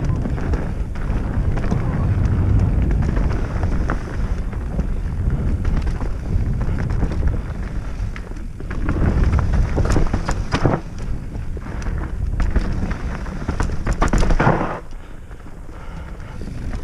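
Mountain bike riding fast down a dirt forest trail: wind rumbling on the camera microphone, tyres running over dirt and roots, and sharp knocks and rattles from the bike over bumps. The clatter is heaviest about ten seconds in and again around fourteen seconds.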